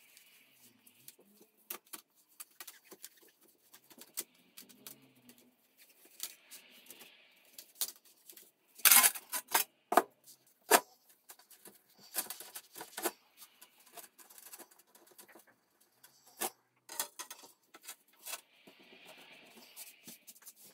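Sponge rubbing across oven door glass, with scattered clicks and knocks as the glass panels are handled and laid on the countertop; the loudest knocks come in a cluster about nine to eleven seconds in.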